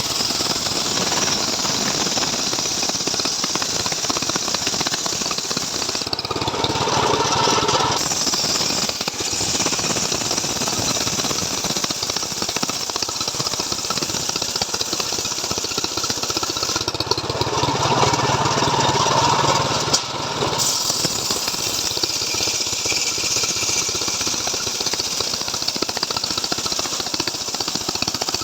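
Two-stroke Stihl MS 381 chainsaw engine running hard, driving a homemade saw rig through wood. The engine's note changes briefly about six seconds in and again for a few seconds around the middle.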